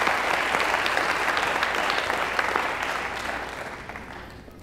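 Audience applauding, the clapping dying away over the last second or so.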